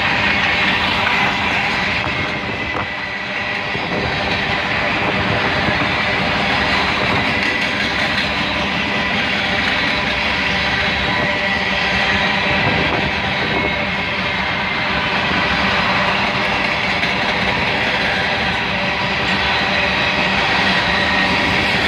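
Union Pacific manifest freight train's covered hopper cars rolling past at close range: a continuous rumble and rattle of steel wheels on the rails, with thin steady high-pitched metallic tones ringing over it.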